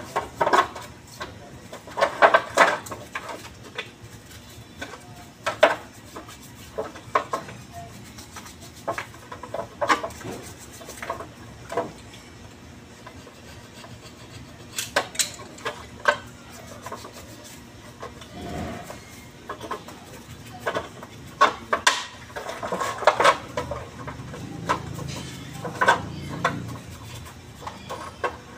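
Metal starter-motor parts and hand tools clinking and knocking against a steel block in irregular taps, with a stretch of scraping late on.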